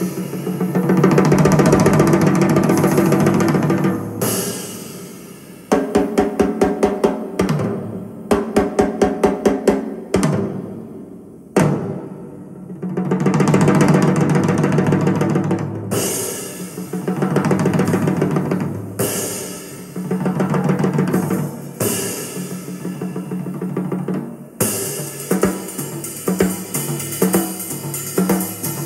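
Drum-heavy music played back through a slot-loaded open-baffle (SLOB) dipole loudspeaker, heard in the room. Sustained pitched passages alternate with runs of quick, evenly spaced drum strikes.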